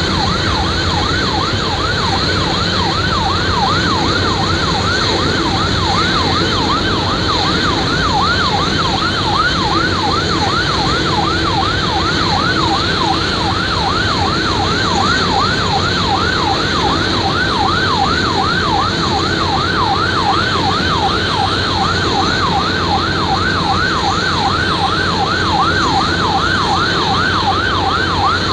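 Airport fire truck siren sounding a fast, continuous yelp, its pitch sweeping up and down a couple of times a second, over a steady broad rush of noise.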